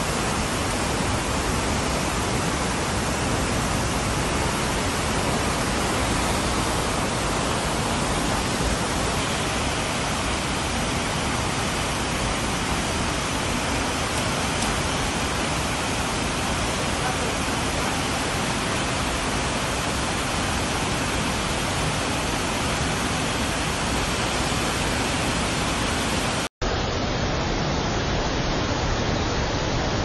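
Waterfall in flood, swollen with muddy rainwater, pouring down heavily: a steady, unbroken rush of falling water. The rush drops out for a split second near the end.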